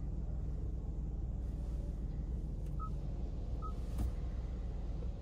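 Two short button-press beeps from a car's infotainment touchscreen, about a second apart, over a steady low hum inside the car, with a click about four seconds in.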